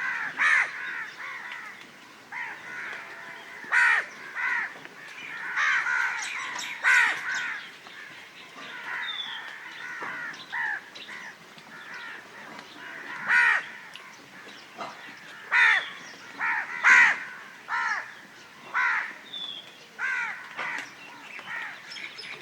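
Several crows cawing repeatedly, their harsh calls overlapping, with louder single caws standing out every second or two.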